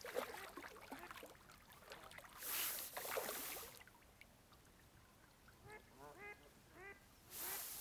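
A hooked carp splashing and swirling at the water's surface while being played to the bank, twice, the second near the end. A few faint, short bird calls come in between.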